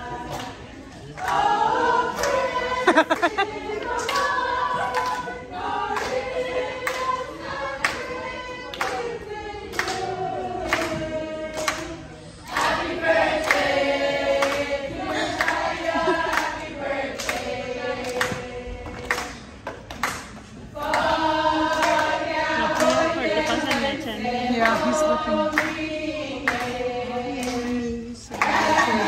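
Music: a group of voices singing together in harmony over a steady beat.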